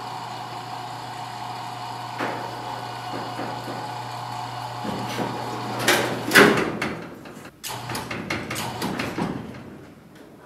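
Sheet-steel body shell of a 1965 VW Beetle clunking and knocking as it is lowered and seated back onto its chassis by hand, with the loudest clunks about six seconds in. A steady hum runs underneath and partly stops about halfway.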